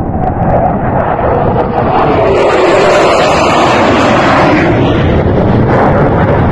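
F-16 Fighting Falcon's single jet engine during a low fly-by: a loud, growing rush of jet noise that builds over the first two seconds as the fighter passes close, then stays loud as it flies off.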